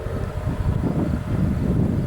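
Amtrak passenger train rolling past at speed: a steady low rumble, with wind buffeting the microphone.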